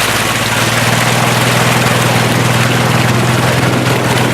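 A steady engine running, with a constant low hum and a fine, even pulsing.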